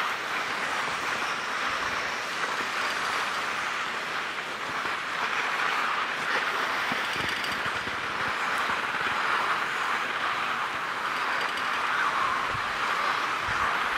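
Skis sliding over the packed, groomed snow of a platter-lift track while being towed uphill: a steady scraping hiss.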